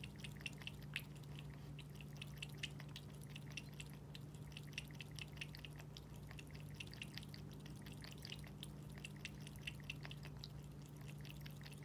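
A cat lapping water from a pet drinking fountain: a quick run of soft, wet laps, several a second, with brief pauses, over a low steady hum.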